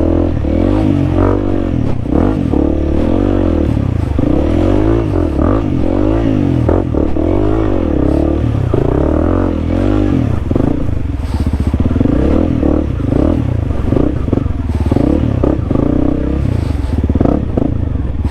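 Honda CRF300L's single-cylinder four-stroke engine revving up and down again and again as the bike is worked through deep mud holes, then settling to a steadier run about halfway through.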